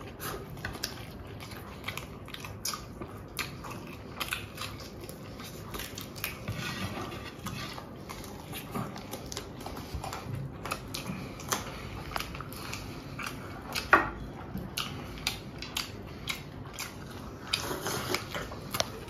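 People chewing and biting into fast food, with scattered small clicks and knocks of dishes and cutlery, one louder knock about fourteen seconds in.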